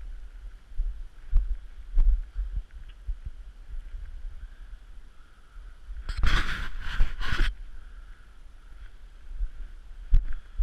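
Yamaha Raptor 700R ATV riding through a snowstorm, with wind buffeting the microphone in low, uneven thumps. A louder rush of noise comes about six seconds in and lasts just over a second.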